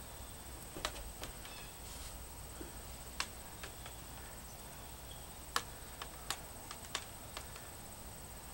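Faint, irregular light clicks, about ten of them, over a steady high-pitched whine.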